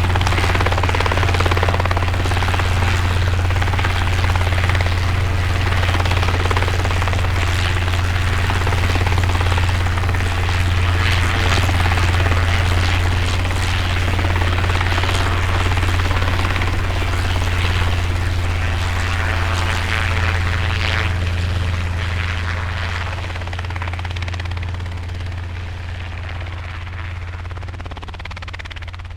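Helicopter rotor and engine running with a strong, steady low rotor beat, fading gradually over the last third as it flies away.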